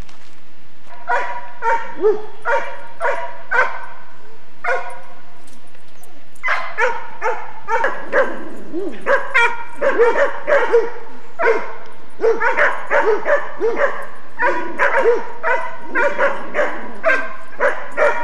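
Dogs barking and yipping over and over, about two barks a second, with a short break about five seconds in.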